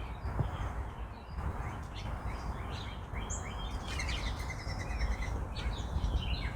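Carolina wren calling: a rapid string of repeated loud notes that starts about two-thirds of the way in, after a few scattered high chirps. Under it is a steady low outdoor rumble.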